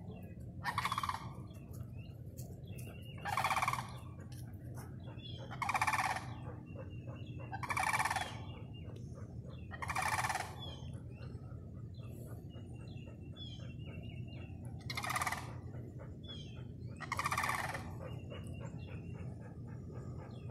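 Sandhill cranes calling, about seven calls of roughly half a second each, spaced about two seconds apart with a longer pause midway.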